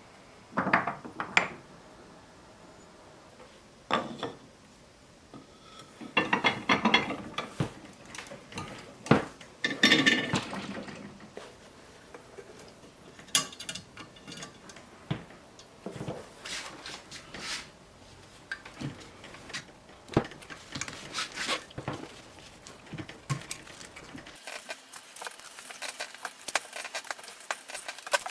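Metal tools and silver wire being handled on a jeweler's bench, making scattered light clinks and knocks, with a few busier bursts of rattling handling.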